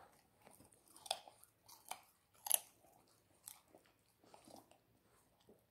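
A chow chow puppy chewing raw carrot: a few faint, separate crunches about a second apart, the loudest about two and a half seconds in.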